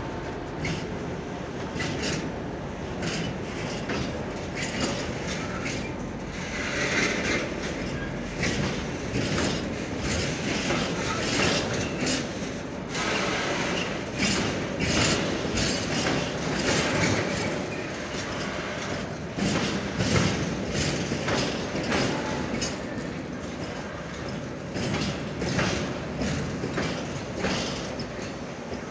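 A freight train of railway tank wagons rolling past close by, its wheels clacking again and again over rail joints above a steady rolling rumble.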